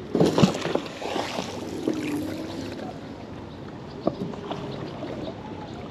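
A magnet-fishing rope and magnet handled over the side of a small boat: a burst of splashing and rope noise in the first half-second, then water lapping around the hull, with a single knock about four seconds in.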